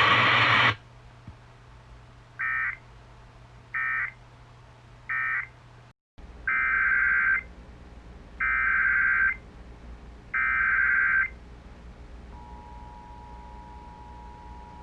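Emergency Alert System SAME data bursts. First come three short end-of-message bursts about a second apart, then after a brief dropout three longer header bursts that open the next warning. About twelve seconds in, the steady two-tone EAS attention signal starts. A low hum runs underneath, and the synthesized voice is just ending at the very start.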